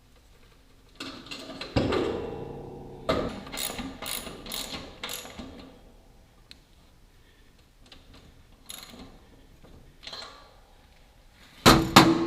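Hand tools working on steel plow parts: sharp metal clanks that ring on briefly, and a run of clicks like a ratchet, with quiet gaps between. The loudest clanks come near the end.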